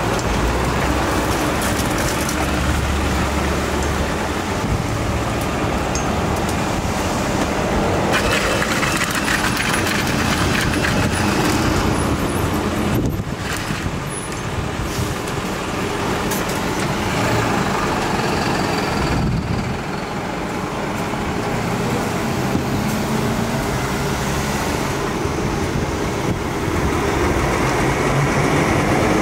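Steady road traffic and engine noise, a low motor hum under a wash of road noise, dipping briefly twice near the middle.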